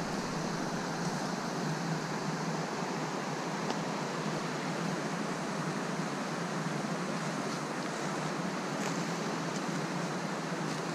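Steady rushing of a small mountain creek running over rocks, an even noise with no break in it.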